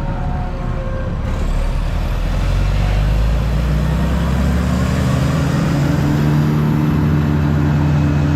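A large engine running steadily, its note rising slightly about two to four seconds in and then holding.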